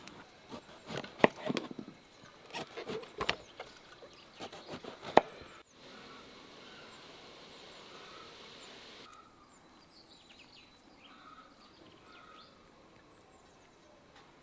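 A run of sharp clicks and knocks for about five seconds, the loudest a single crack near the five-second mark, then a steady hiss for about three seconds that cuts off suddenly, then faint bird chirps.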